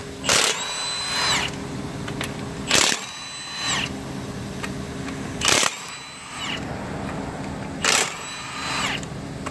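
Milwaukee M18 1/2-inch cordless impact wrench taking lug nuts off a truck wheel. Four bursts come about two and a half seconds apart, each a brief rattle of hammering as the nut breaks loose, then a high whine as the wrench spins the nut free and winds down. A steady low hum runs underneath.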